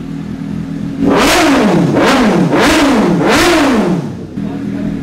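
Suzuki GSX-S750's inline-four idling through a custom aftermarket slip-on exhaust. It is then blipped four times in quick succession, each rev rising and falling in pitch, before dropping back to idle. This is a test of the exhaust's note.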